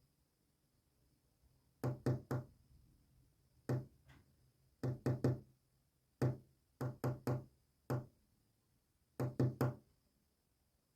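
Knocks rapped out in short groups of one to four quick raps, separated by pauses, like a message knocked in code.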